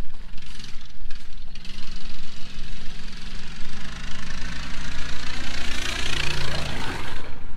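Small engine of a ride-on vehicle running steadily as it drives across the lawn toward the microphone, growing louder and passing close about six to seven seconds in.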